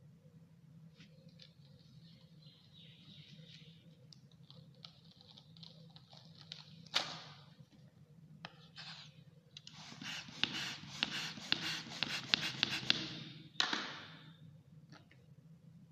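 Latex modelling balloons: faint rubbery squeaks, a sharp snap about seven seconds in, then a rapid rasping flutter for about four seconds as air rushes out through a released balloon's neck, ending abruptly.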